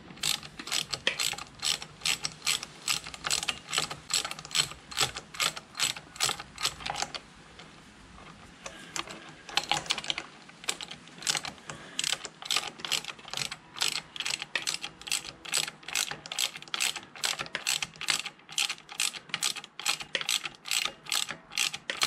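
Socket ratchet clicking in quick, repeated strokes, about three clicks a second, as a motorcycle's rear brake caliper mounting bolt is run in up to touch before torquing. The clicking pauses for about two seconds a third of the way through, then resumes.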